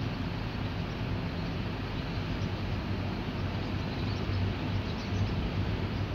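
Steady low hum and rush from the Viking Polaris cruise ship's machinery as the ship moves slowly past.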